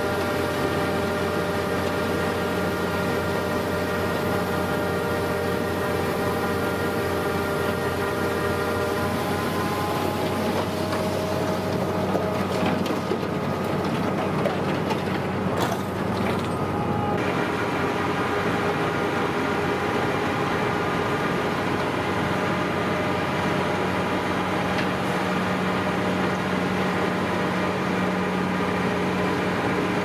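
Rotary snowblower machine's engine and blower running steadily under load, a droning hum with a steady whine over a rushing noise. The pitch shifts a little past a third of the way in, and the sound changes abruptly after about 17 seconds.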